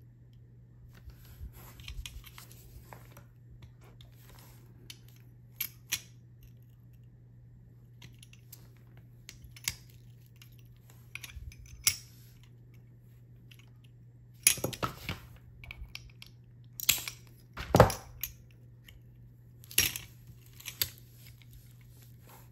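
Sporadic sharp clicks and snaps of small glass pieces being nipped with glass-cutting tools and set down on a hard work surface, busiest in the second half.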